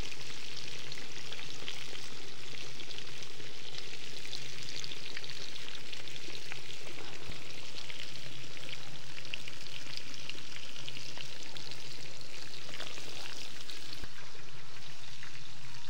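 Food frying in hot fat, a steady sizzle with fine crackles throughout.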